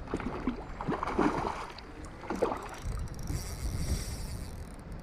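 Wind buffeting the microphone, with several short splashes of water in the first half or so as a hooked rainbow trout thrashes at the surface.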